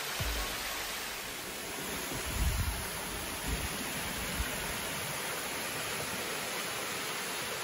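Water rushing steadily as the Nixenfall, a tall alpine waterfall, pours into its pool and the stream cascades below. It is an even hiss, with a brief low rumble about two and a half seconds in.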